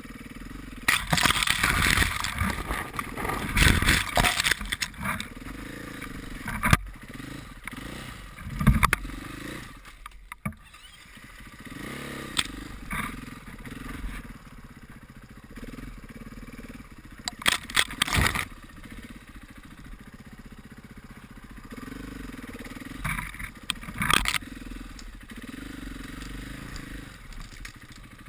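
KTM 500 EXC enduro bike's single-cylinder four-stroke engine running, its revs rising and falling as it is ridden slowly over rough forest ground. Loud clattering and scraping crashes from branches and the bike hitting the terrain break in repeatedly, heaviest in the first few seconds.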